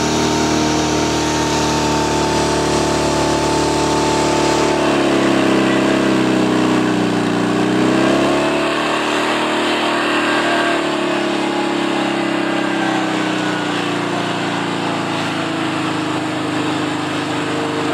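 Portable fire pump engine running flat out while pumping water into the hose lines; its pitch sags about five seconds in and picks back up a few seconds later.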